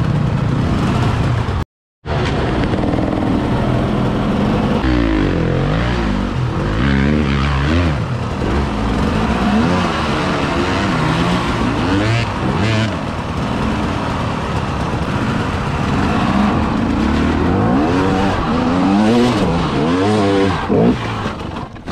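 Enduro dirt bike engine revving up and down over and over as the bike is ridden, its pitch rising and falling every second or so. The sound drops out completely for a moment about two seconds in.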